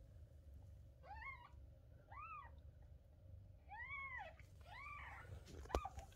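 Newborn kitten mewing: four short, high-pitched mews, each rising then falling, about one a second. A sharp click near the end.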